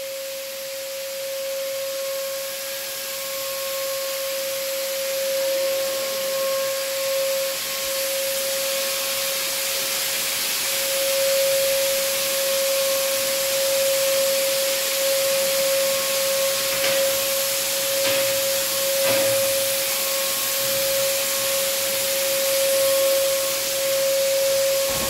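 Electric handheld fogging sprayer running, a steady high motor whine over the hiss of disinfectant mist being blown out, growing louder over the first few seconds and then holding steady.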